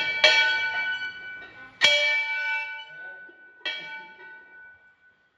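A metal bell struck four times, the first two in quick succession, each stroke ringing on with several clear tones and fading away.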